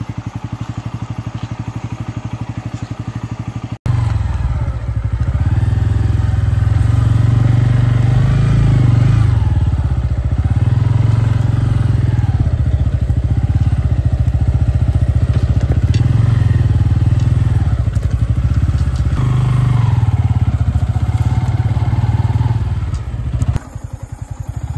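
Motorcycle engine running steadily. About four seconds in the sound cuts abruptly to a louder, deeper rumble whose pitch rises and falls, then cuts back near the end.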